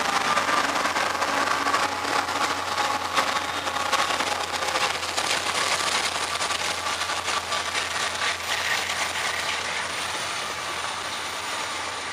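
Diesel freight locomotives passing close by, engines running under a steady rumble of wheels on rail with many sharp clicks and clatter from the track. The sound eases slightly near the end as the engines go by and empty intermodal cars roll past.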